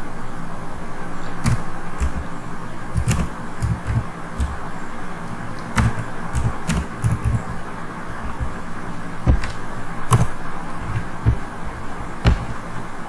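Computer keyboard keys pressed one at a time: slow, irregular clicks about one a second over a steady background hum.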